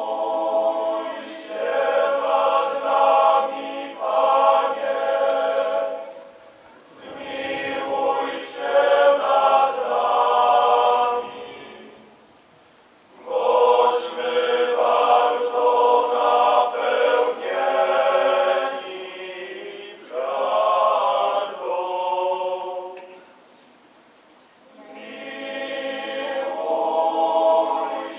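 A choir singing a slow, hymn-like chant in several phrases, each broken off by a short pause. The last phrase swells in near the end.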